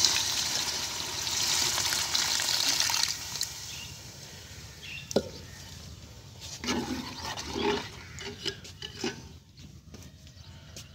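Water poured into a pot of hot frying masala, hissing and sizzling loudly for about three seconds and then dying away. After that, a steel ladle clicks and scrapes in the aluminium pot a few times.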